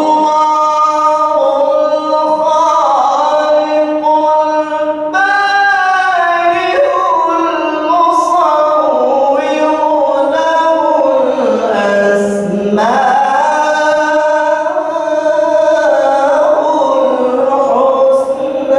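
A man recites the Quran in the melodic tilawah style, one long unbroken phrase of held, ornamented notes. The pitch sinks to a low point about two-thirds of the way through, then climbs back up.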